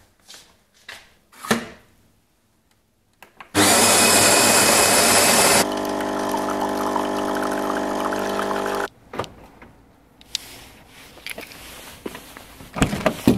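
Fully automatic coffee machine grinding beans for about two seconds with a loud, even grinding, then its brewing pump running with a steady hum for about three seconds as coffee pours into a mug. A few footstep taps come first, and a car door clunks open near the end.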